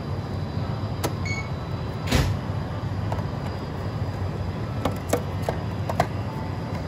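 Self-serve convenience-store smoothie machine: a short electronic beep as the fruit cup's barcode is scanned, then a brief whoosh as the machine's clear door slides open, followed by several light knocks of the plastic cup being set into the holder, over a steady low machine hum.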